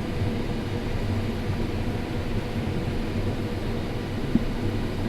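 Steady drone of a John Deere S670 combine running while harvesting corn, heard from inside the cab. A faint click about four seconds in.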